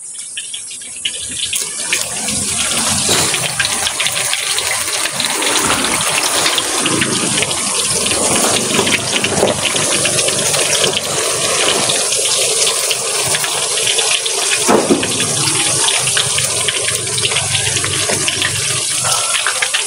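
Banana fritters (pisang goreng) frying in hot oil in a pan: a steady, hissing sizzle that builds over the first few seconds and then holds.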